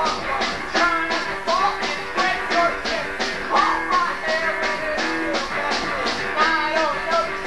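Live rock band playing a song, drums keeping a steady beat under guitar and a wavering sung or played melody line.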